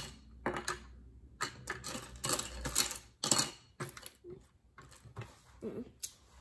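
Small plastic Lego pieces clicking and clattering against each other as they are handled and fitted into place. The clicks are irregular and come thickest between about one and a half and three and a half seconds in, then thin out.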